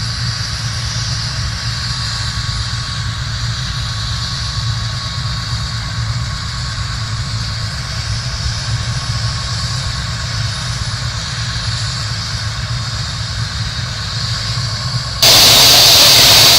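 Helicopter running on the ground, a steady low drone with a high hiss above it. Near the end the sound cuts suddenly to a much louder, steady rushing hiss.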